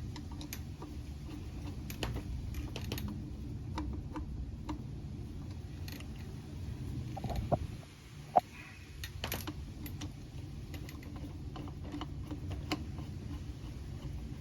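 Light, scattered clicks and taps of small plastic and metal parts being handled during hands-on work on a two-stroke string trimmer's fuel system, with one sharper click about eight seconds in, over a steady low hum.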